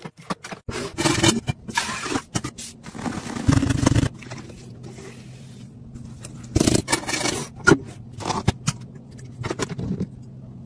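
A quick string of kitchen handling sounds: sharp clicks and taps of foil juice pouches and containers being handled and set down, rustling scrapes, and a metal spoon scraping in a glass jar of ground coffee. A faint steady hum sits underneath from about four seconds in.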